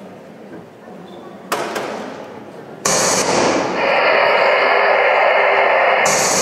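A sharp knock, then a loud, steady crackling hiss that starts suddenly about three seconds in and cuts off abruptly about three seconds later, its echo dying away in the hall.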